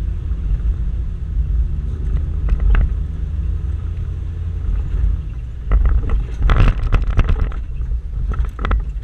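Toyota Land Cruiser 120 rally car heard from inside the cabin while driving on a rough dirt track: a steady low engine and drivetrain rumble, with knocks and rattles from the body and suspension over bumps, a few around two and a half seconds in and a dense run of them about six to seven and a half seconds in.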